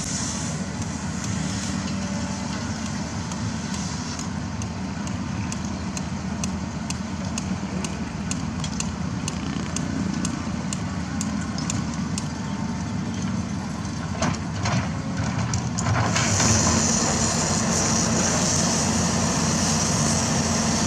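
Diesel engine of heavy construction machinery running steadily, with a run of sharp metallic ticks through the middle. From about 16 seconds a louder steady hiss of an oxy-fuel cutting torch cutting steel joins in.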